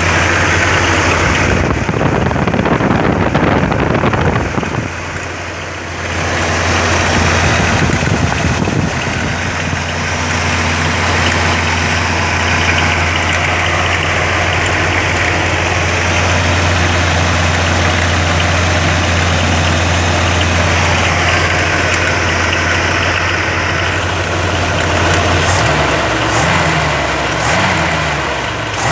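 Small-block 350 V8 with an Edelbrock 1405 four-barrel carburetor, idling steadily. Near the end the engine note rises and falls a few times.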